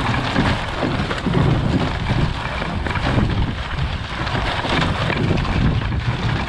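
Steady rumbling, scraping noise of a vehicle dragging a chain-link fence across dry pasture ground, with wind buffeting the microphone.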